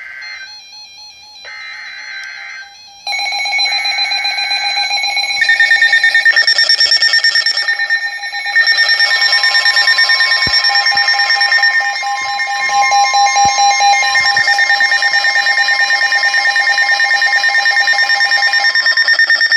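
Emergency alert tones: several steady electronic beeping tones, on and off for the first few seconds, then layered one over another and getting louder in steps about 3, 5.5 and 8.5 seconds in, with a fast fluttering pulse.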